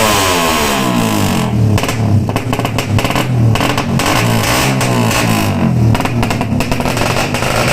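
Race-tuned Suzuki Satria FU 150 single-cylinder engine with a ported head, revved up and down in repeated throttle blips. It is being test-run after a carburettor needle change.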